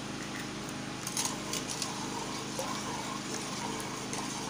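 Steel ladle stirring milk sharbat in a steel pot, clinking sharply against the pot several times from about a second in, over a steady background hum.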